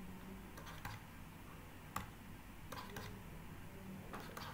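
A handful of faint, scattered clicks and taps from a stylus writing on a pen tablet, the loudest about two seconds in, over a low steady hum.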